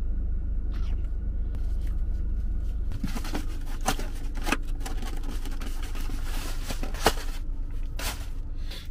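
Plastic bag and styrofoam takeaway box being handled, crinkling and clicking from about three seconds in, with one sharp click a little after seven seconds. A steady low rumble inside the car runs underneath.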